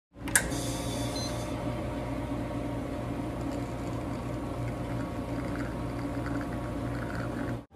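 Commercial espresso machine brewing a shot, its pump running with a steady hum, with a sharp click just after the start.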